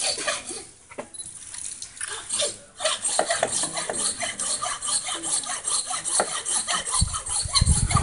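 Hand saw cutting through an elephant's ivory tusk to trim it. The scraping strokes are irregular at first, then settle into a fast, even rhythm about three seconds in. A low rumble joins near the end.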